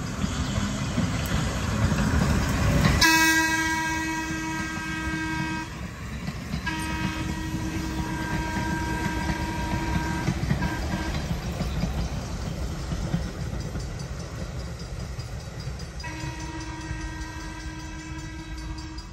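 Chicago, Aurora and Elgin electric interurban cars rolling past with wheels clattering on the rails, loudest about three seconds in. Then the train's horn sounds three long steady blasts: the first about three seconds in, a longer one soon after, and a third starting near the end.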